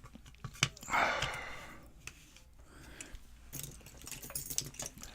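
Small metallic clicks and rattles from handling a just-picked challenge lock and lock picks, with a brief rustle about a second in.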